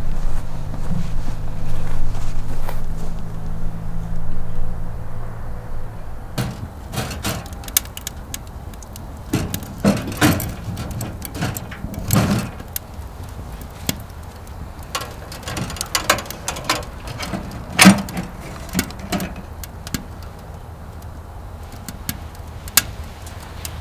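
A steady low hum for the first several seconds, then a run of sharp knocks and clatters as sticks of firewood are loaded into the firebox of a stainless-steel camping wood stove, with wood striking the metal and a loud knock near the end of the loading.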